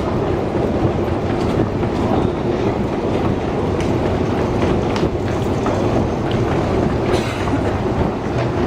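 Metro escalator running: a steady mechanical rumble with a scatter of light clicks and clatter from the moving steps.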